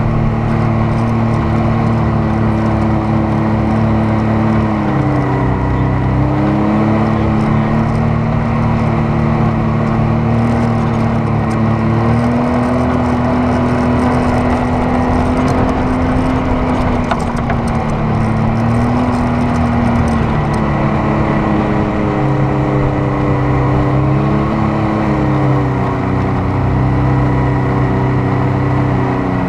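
Off-road vehicle engine running under load while driving over sand dunes, its pitch dropping and rising several times as the throttle changes, over steady wind and driving noise.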